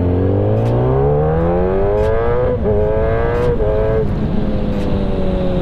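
Kawasaki ZX-10R's inline-four engine accelerating hard, pitch climbing through the gears with quick drops at the upshifts about two and a half and four seconds in, then holding fairly steady.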